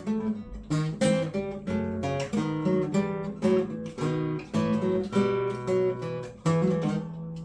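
Acoustic guitar being strummed and picked: a string of chords, each struck sharply and left to ring.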